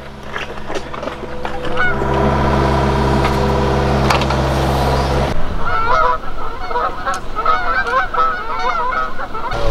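A compact excavator's engine running steadily at idle, with a few light clicks, for the first five seconds or so. It then cuts off abruptly to a flock of geese honking over and over, many calls overlapping, until just before the end.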